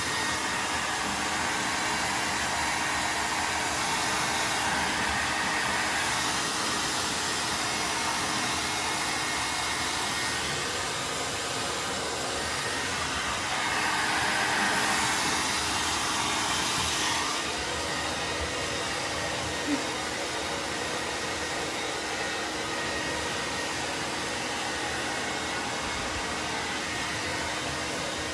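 Hand-held hair dryer blowing steadily as it dries a dog's coat. The airflow gets louder and brighter for a few seconds around the middle, then settles back.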